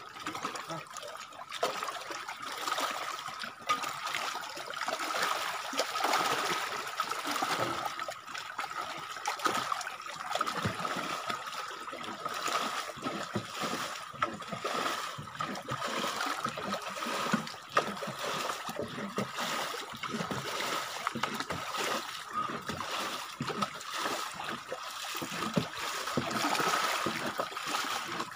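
Water splashing and sloshing in irregular scoops as a swamped wooden outrigger canoe is bailed out by hand.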